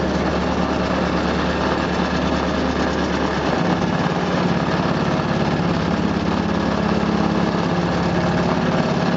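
A boat's engine running steadily under the crane lift, a continuous hum whose low note shifts slightly about three and a half seconds in.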